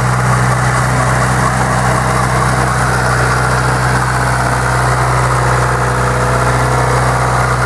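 Tractor engine running at a steady speed, a loud even drone.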